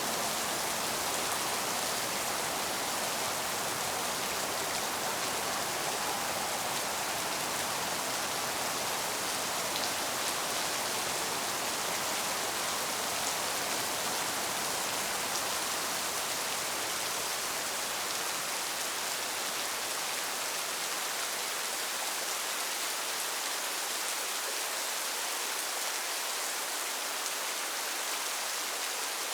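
Steady rain falling, an even continuous hiss with no distinct drops or thunder standing out.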